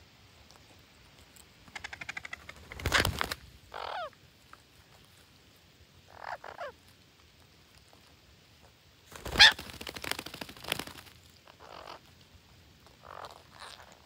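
Red-breasted parakeets squawking: a quick rattling chatter, harsh screeches and short calls that drop in pitch, scattered and broken by gaps. The loudest screech comes about nine and a half seconds in.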